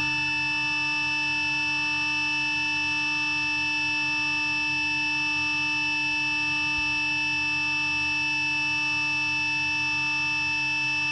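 CNC router spindle turning a Bravo 8 mm router bit at 18,000 rpm as it mills an 18 mm multi-layer birch plywood panel: a steady whine of several high tones held together, unchanging in pitch and level.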